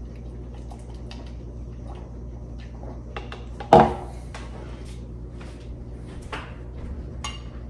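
Wooden spoon scraping and clicking against a small plastic blender cup of thick pesto, with one sharper knock a little under four seconds in.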